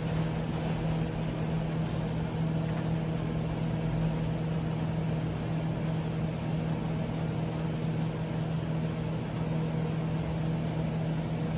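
Water-cooled DC air conditioner's external unit running its water-injection program: a steady machine hum with a strong low tone.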